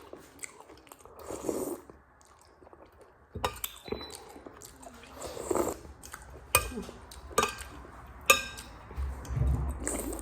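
Someone eating noodles from a bowl: chewing and mouth noises, with several sharp clinks of utensils against the bowl.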